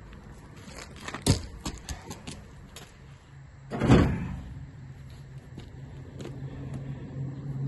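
Clinks and knocks of a car battery and its terminals being handled and set in place, with a louder scrape or thump about four seconds in. A steady low hum starts about three seconds in.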